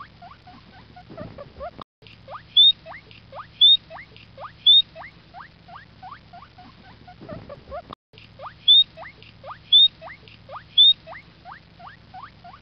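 Guinea pig wheeking: a run of short rising squeaks, about one or two a second, with a few louder, very high chirps among them over a low steady hum. The same few seconds of squeaking play over again, broken off briefly twice.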